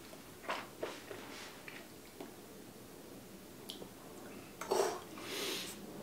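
Faint mouth sounds of a person tasting whiskey: a few small lip and tongue clicks, then a breath about five seconds in.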